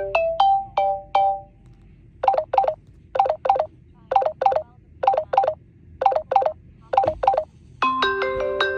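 Samsung Galaxy J3 (2017) ringtones played through the phone's speaker: the last notes of a short melodic tone, then a ringtone of short electronic beeps in pairs, about one pair a second. Near the end a new ringtone begins with ringing bell-like chimes.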